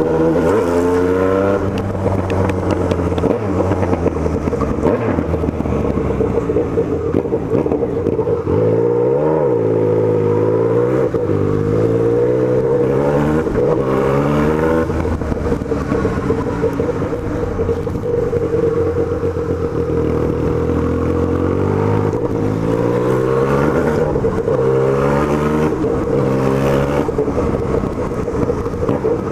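Yamaha MT-09 three-cylinder motorcycle engine running under way, its pitch climbing and dropping again and again as the bike accelerates through the gears and eases off.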